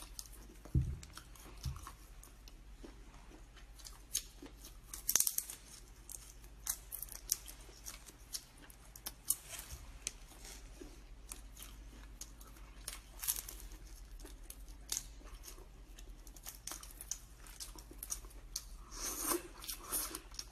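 Cooked crayfish shells being cracked and peeled by hand, an irregular run of small crackling clicks, with chewing.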